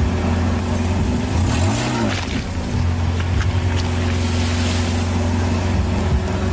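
Car engine running steadily, its pitch briefly rising and falling about two seconds in, with a few faint cracks.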